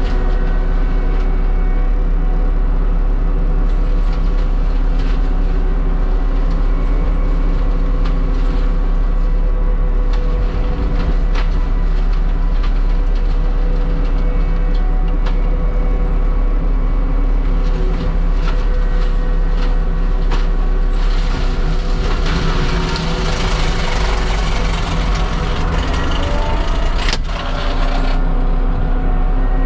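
Diesel engine of heavy land-clearing machinery running steadily, with a rougher, hissier stretch of working noise from about 22 to 28 seconds in and a single sharp crack near the end of it.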